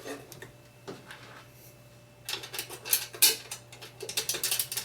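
Meter collar being fitted onto a meter socket adapter, with a quick, irregular run of clicks, knocks and scrapes of hardware that gets busy about two seconds in.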